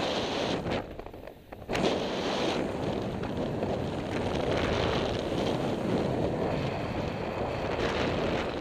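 Wind rushing over the microphone of a camera on a paraglider in flight, a steady rough roar that dips briefly about a second in.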